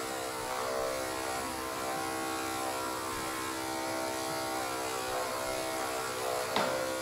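Electric dog-grooming clippers fitted with a 4FC blade running with a steady buzz while trimming a springer spaniel's coat. There is a short sharp sound near the end.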